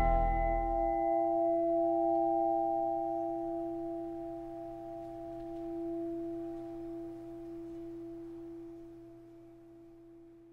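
A struck church bell ringing on and dying away, its hum note and several higher tones fading slowly. The sound swells and ebbs once about halfway, and the last of the ring dies out near the end.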